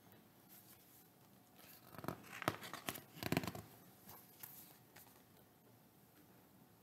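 A page of a large hardcover picture book being turned: paper rustling and flapping with a few sharp clicks, bunched into about a second and a half a couple of seconds in.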